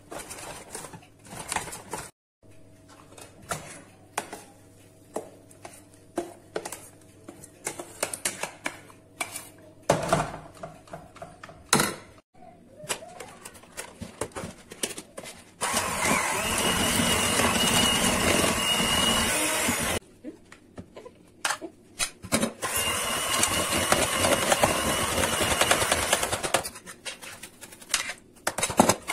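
Electric hand mixer beating cubed butter in a plastic bowl for buttercream: it starts about halfway through, runs steadily with a high whine for about four seconds, stops briefly, then runs again for about four seconds. Before it, scattered clinks and knocks of a spoon and pot.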